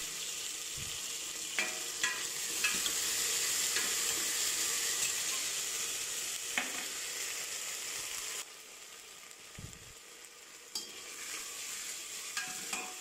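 Sliced shallots and ginger-garlic paste sizzling in hot oil in a stainless steel pressure cooker, with a few clinks and scrapes of a metal ladle as they are stirred. The sizzle drops quieter for a couple of seconds past the middle, then comes back.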